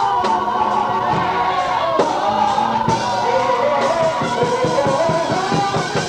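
A woman singing a gospel song with musical accompaniment, held long notes sliding in pitch; a fast run of rhythmic beats comes in over the second half.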